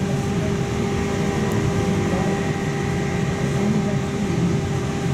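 Inside a Trolza-5265.00 Megapolis trolleybus under way: steady running rumble with a constant hum.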